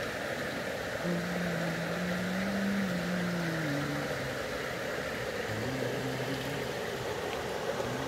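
Shallow mountain stream flowing steadily over pebbles and rocks, a constant rushing of water. A low, slow tune of held notes sounds faintly over it for much of the time.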